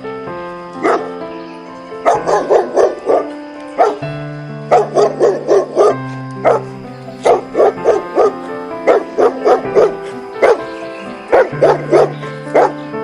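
A dog barking in quick runs of short barks, several in a row, over a background music track.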